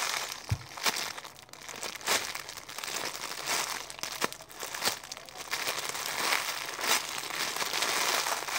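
Clear plastic packaging bag crinkling as a squishy toy inside it is handled, with irregular sharp crackles throughout and a soft low bump about half a second in.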